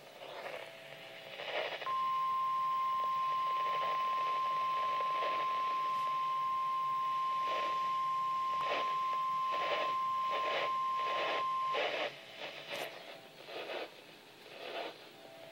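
NOAA Weather Radio warning alarm tone: a single steady tone near 1050 Hz held for about ten seconds, starting about two seconds in and cutting off near the end. It signals that a severe thunderstorm warning is about to be read.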